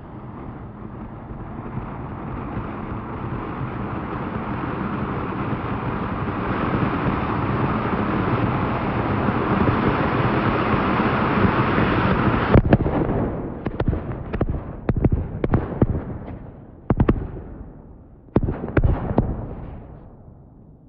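Diwali anar (flowerpot fountain) hissing as it sprays sparks, growing louder for about twelve seconds. It then cuts off and the string of mirchi firecrackers set inside it goes off in a rapid, uneven series of sharp bangs, with a last cluster of cracks near the end.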